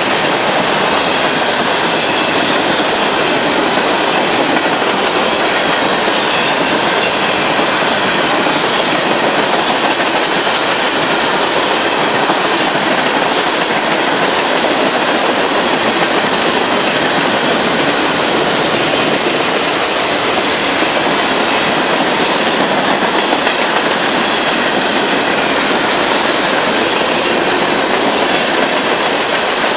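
Union Pacific manifest freight train rolling past, a loud steady rush of steel wheels on rail that holds even throughout.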